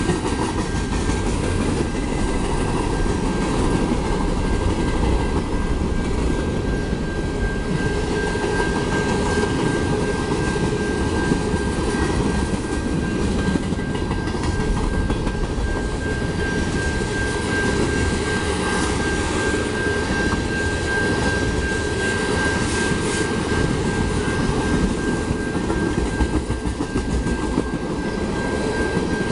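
Freight train cars rolling past close by, a steady rumble of steel wheels on rail. A thin, steady high tone runs through it.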